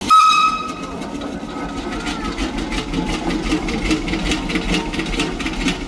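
Machinery running with a steady rhythmic clatter, several beats a second, opening with a brief loud high-pitched tone that lasts about half a second.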